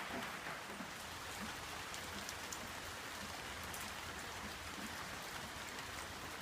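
Steady rain falling during a tropical storm, with scattered drops ticking on nearby surfaces.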